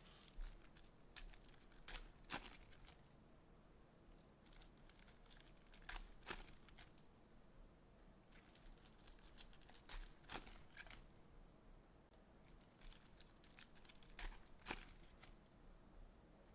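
Faint crinkling and tearing of trading card pack wrappers as packs are ripped open, in scattered short crackles a few seconds apart.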